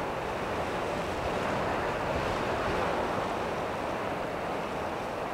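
Steady rushing noise with no distinct events or tones.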